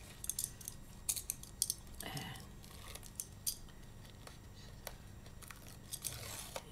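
Light clicks, taps and rustles of paper card stock being handled and fitted together by hand.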